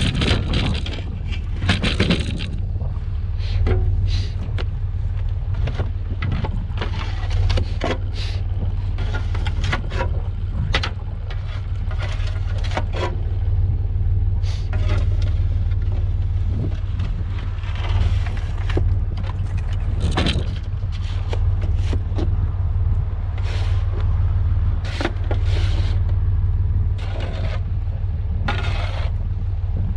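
A farm vehicle's engine running steadily as a low drone, with frequent short clanks and rattles over it.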